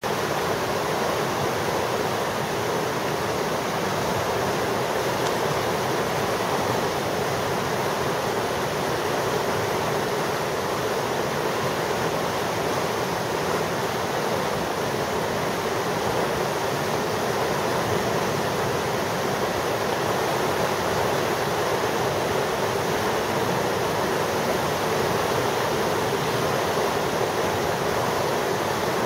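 Whitewater rapids below a weir rushing steadily.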